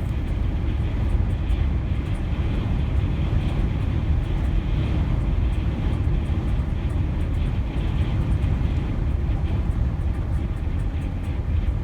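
Steady low rumble of road and wind noise from a vehicle driving at highway speed in strong winds.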